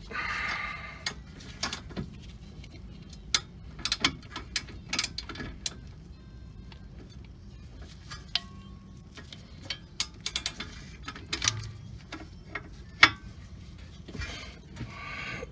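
Ratcheting wrench clicking in short runs, near the start and again near the end, as a brake caliper mounting bracket bolt is turned, with scattered sharp metal clicks and taps of tools between.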